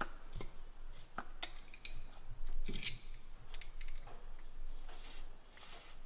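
Light clicks and taps in the first half, then about three short hisses of silicone spray from an aerosol can in the second half, lubricating under the rubber boot of a brake caliper piston.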